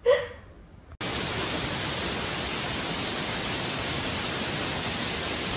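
Steady, even hiss like static that cuts in abruptly about a second in and holds at one level, the recording's own noise. Just before it, a brief pitched sound at the very start.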